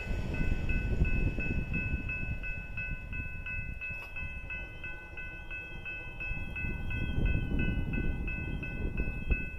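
Level-crossing warning bell ringing steadily at about three strikes a second while the crossing gates begin to rise after the train has cleared, over a low rumble.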